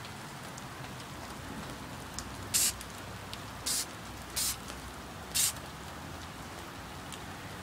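Aerosol spray paint can giving four short hisses, roughly a second apart, as paint is misted on in a few light random spots.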